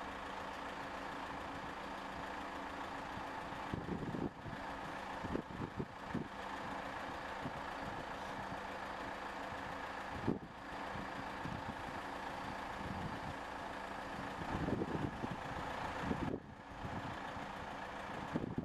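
Heavy machinery running steadily, a hum with several held tones, with a few short knocks and clicks scattered through it.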